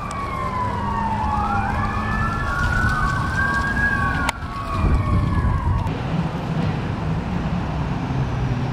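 Fire engine sirens wailing as they approach: two or more at once, rising and falling over each other, fading out about six seconds in.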